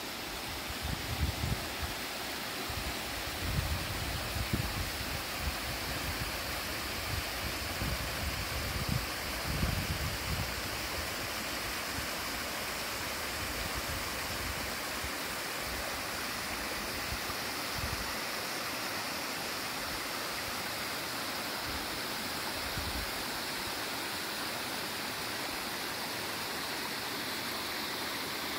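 Steady rush of flowing water, as from a stream. There are irregular bursts of low rumble over roughly the first ten seconds.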